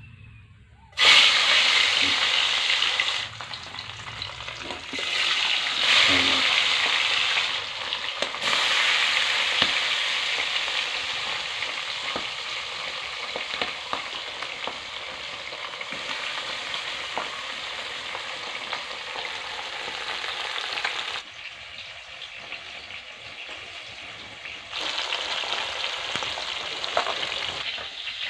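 Fish dropped into hot oil in a black iron wok, sizzling and spitting as it fries. The sizzle starts suddenly about a second in, surges twice more, then settles to a steady frying that dips for a few seconds and returns near the end. Small clicks of a utensil in the pan can be heard.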